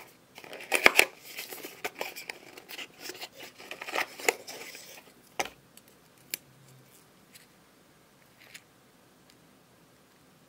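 Unboxing packaging being handled: dense rustling and scraping with sharp clicks for about five seconds, then a few separate clicks and taps.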